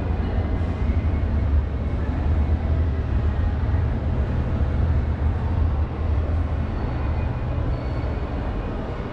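Steady low rumble with a light hiss above it: the background noise of a large indoor hall heard on a walking camera.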